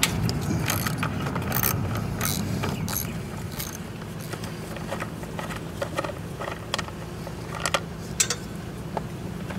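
Hand tool undoing the screws on a GY6 scooter's plastic fan cover: scattered small clicks and ticks, over a low steady hum.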